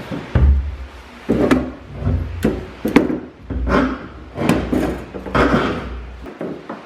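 A string of about ten irregular wooden knocks and bumps with low thuds underneath, from half-inch marine plywood being worked and handled.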